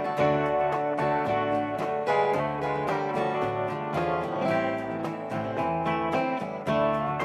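Country-rock music: a guitar-led instrumental passage with strummed and plucked acoustic guitar, between sung lines of the song.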